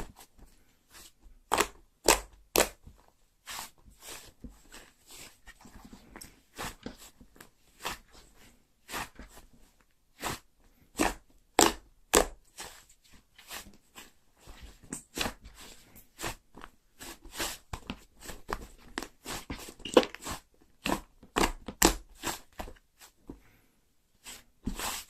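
Slime being worked by hand, giving a long run of sharp, irregular popping clicks, about one or two a second, some much louder than others.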